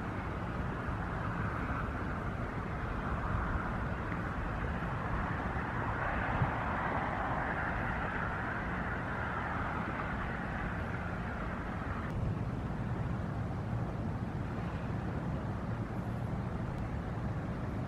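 Low, steady drone of a loaded inland motor cargo barge's engine under way, with a constant hiss over it. The hiss drops off abruptly about twelve seconds in.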